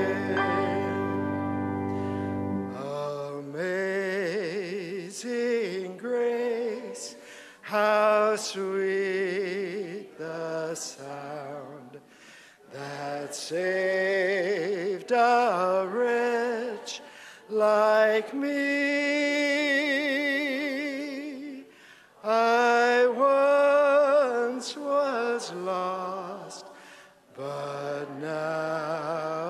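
A man singing solo with strong vibrato, phrase by phrase with short pauses between; a held accompaniment chord sounds for the first couple of seconds.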